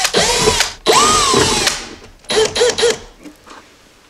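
Cordless drill/driver backing out the screws that hold a door speaker. The motor whines up and winds down twice in the first two seconds, then gives three short bursts on the trigger about two and a half seconds in.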